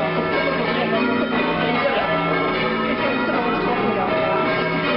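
A ring of church tower bells being rung full circle, one bell after another, with their tones overlapping and ringing on without a break.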